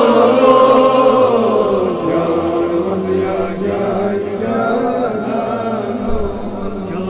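A Kashmiri naat, a devotional Islamic poem, sung in a chanting style, with long, slowly wavering held notes.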